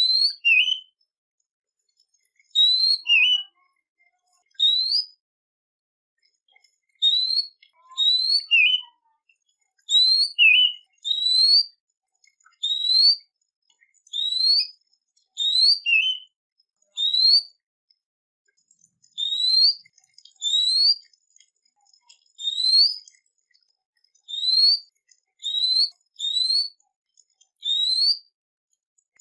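A songbird sings short, clear whistled notes that slur upward, singly or in quick pairs, about every one to two seconds, with brief silences between phrases.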